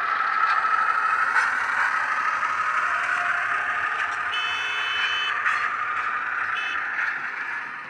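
DCC sound decoder in an OO gauge Ruston 48DS shunter playing its diesel engine sound through the model's small speaker, with the wagons' wheels running over the track. A short high squeal comes about four seconds in and again briefly near seven seconds, and the sound fades near the end as the train moves away.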